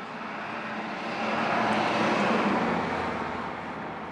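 A passing vehicle: its noise swells to a peak about two seconds in and then fades away.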